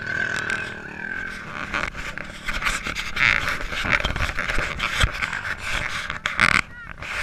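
Water splashing and sloshing right at the microphone, the camera riding at the water's surface among people wading chest-deep. Louder splashes come about three seconds in and again after six seconds.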